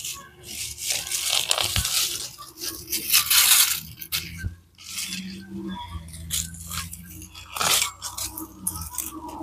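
Dry plant stems and leaves crunching and rustling in irregular bursts as garden balsam plants are handled for their seed. The loudest bursts come about two and three seconds in, with a sharp one near the end.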